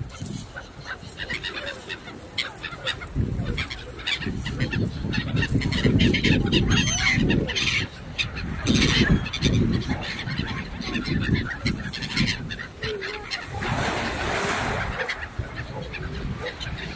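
Gulls and mute swans calling together in a crowded flock at the water's edge, many short calls overlapping throughout.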